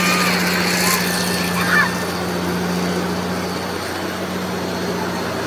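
Steady machine hum with a rushing noise from an amusement ride's machinery, and a brief faint cry about a second and a half in.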